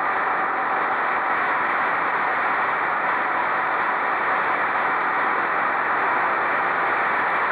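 Steady rushing wind and road noise on the microphone of an onboard camera riding a moving quad bike, an even hiss with no distinct engine note or knocks.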